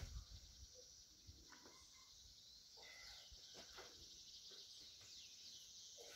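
Near silence with faint, steady insect buzzing and a few faint bird chirps.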